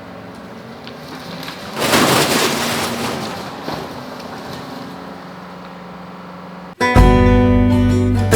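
John Deere 333G skid steer's diesel engine running steadily, with a loud burst of noise about two seconds in that dies away over a second or so. Near the end it cuts abruptly to strummed acoustic guitar music.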